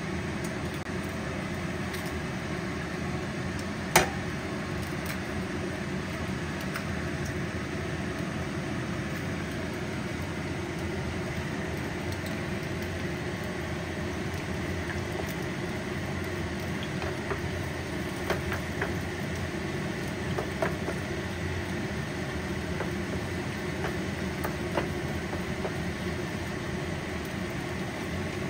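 A steady low hum with a light sizzle of eggs frying in oil in a non-stick pan. About four seconds in there is one sharp crack as an egg is broken, and in the second half come scattered light clicks and scrapes of a wooden spatula against the pan.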